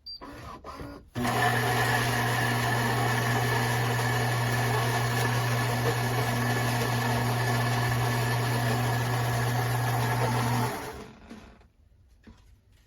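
Built-in ceramic burr grinder of a Philips 3300 Series automatic espresso machine grinding espresso beans for a first shot. It starts about a second in, runs at an even, steady pitch for around nine seconds, then stops.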